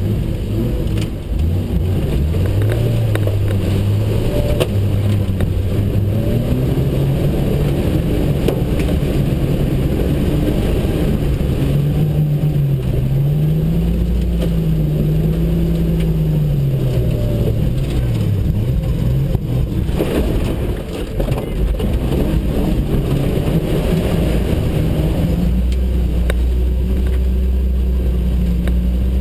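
Jeep Cherokee XJ engine running under load off-road, its revs rising and falling again and again.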